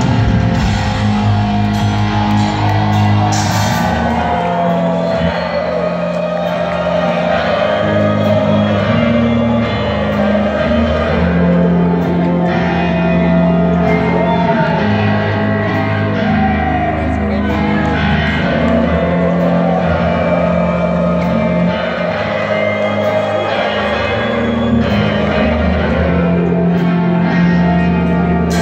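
Live rock band playing loud in a large hall: electric guitars, bass guitar and drums, with singing.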